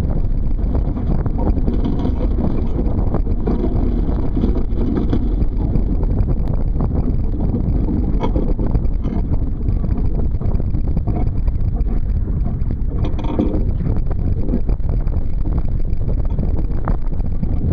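Wind rumbling steadily on the microphone while water rushes and slaps against the hull of a Sunfish sailboat heeled over under sail. There are louder splashes about halfway and about three quarters of the way through.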